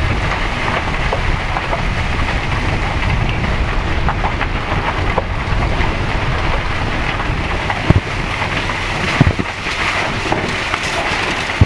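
Shuttle buggy driving along a garden path: a steady rumble of the vehicle with wind noise on the microphone, and two sharp knocks about 8 and 9 seconds in.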